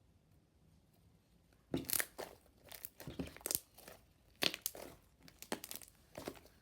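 Fluffy slime being squeezed and pulled by hand, giving a string of irregular crackling, tearing sounds that start about two seconds in.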